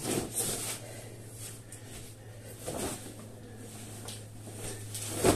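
A man breathing hard as he lifts a sandbag and presses it overhead, with a steady low hum underneath and a sudden thump near the end.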